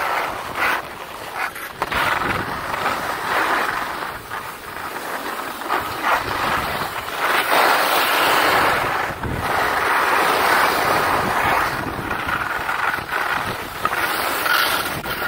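Skis sliding and scraping over packed snow during a downhill run, a continuous rushing hiss that swells and eases as the skier turns.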